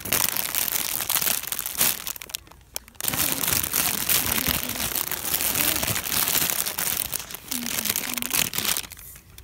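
Crackly rustling and crinkling handling noise, dense and uneven, which dies down for a moment about two and a half seconds in.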